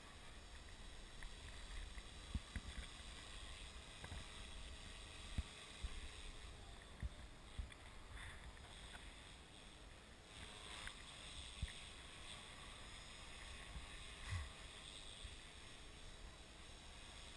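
Faint, distant whine of a small radio-controlled model aircraft flying high overhead, swelling a little twice, over light wind on the microphone with scattered low thumps.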